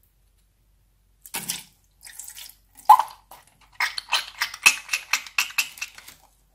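Wet slime being squeezed and pressed by hand: irregular squelches and crackling pops. They start about a second in and quicken to several a second in the last couple of seconds.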